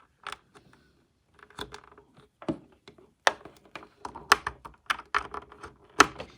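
Irregular clicks and knocks of power and USB cords being handled and plugged back into a Cricut Explore Air 2 cutting machine, busier and louder from about three seconds in.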